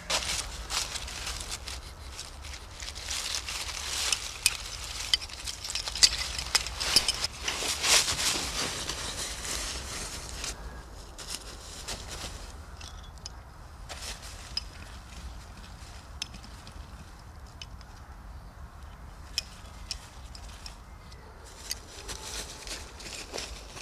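Dry fallen leaves crackling and rustling as a person scrabbles through the leaf litter on hands and knees. The crackling is busiest in the first half, then thins to scattered crackles.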